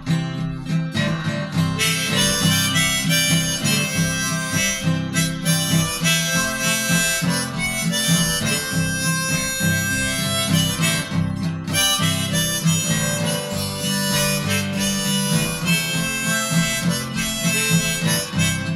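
Harmonica solo over acoustic guitar chords: an instrumental break in a blues-country song, with no singing.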